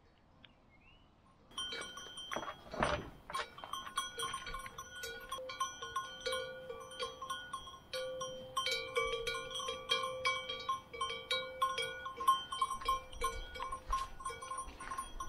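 Metal bells on grazing livestock clanking irregularly, several pitches ringing at once, starting suddenly about a second and a half in.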